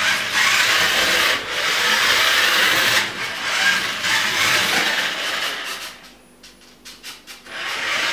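A small DIY Bluetooth RC car's electric drive motor and gearbox running with the car moving. The noisy whirr comes in spurts, easing off briefly twice and dropping away for about a second and a half near the end, with a few clicks, before starting up again.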